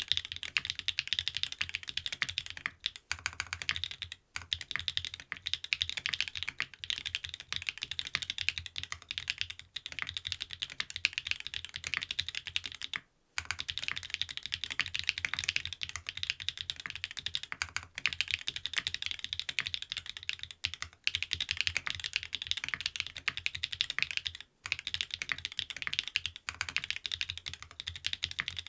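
TKD Cycle 7 mechanical keyboard with SW x Gateron Deepping linear switches, aluminium plate and PBT keycaps, being typed on fast and continuously: a dense run of keystroke clacks with a few brief pauses.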